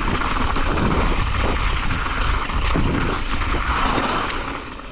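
Electric mountain bike rolling fast over loose, rocky gravel singletrack: tyres crunching and the bike rattling, with scattered knocks from rocks and a heavy rumble of wind on the camera microphone. The noise eases off near the end.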